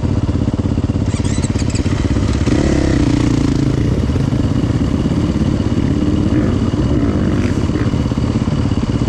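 Motocross bike engines idling, the nearest running with fast, steady firing pulses, and a second engine's note briefly rising and falling about three seconds in.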